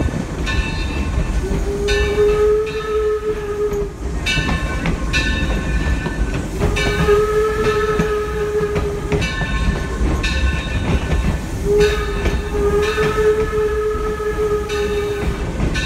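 Steam locomotive's whistle blowing a string of about six long blasts, each a few seconds long with brief gaps between, over the steady rumble of the moving train.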